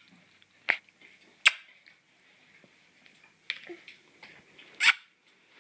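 Baby making kissing sounds with his lips: several short, sharp smacks a second or more apart, the loudest near the end.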